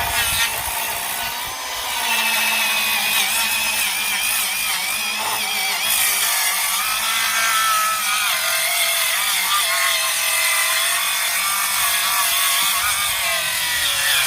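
Milwaukee Fuel brushless circular saw with a DeWalt blade cutting through wood, its motor whine wavering and sagging in pitch: the saw is labouring under the cut.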